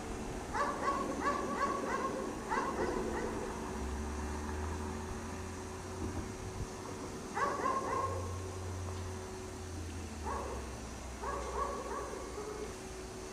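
A dog barking in short runs of several barks each, with pauses of a few seconds between runs. A low hum is heard in the gaps.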